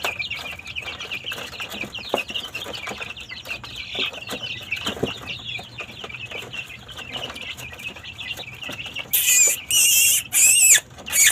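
A brood of young white chicks peeping continuously in a dense chorus of short, high-pitched chirps. About nine seconds in, four much louder, shrill peeps ring out close by.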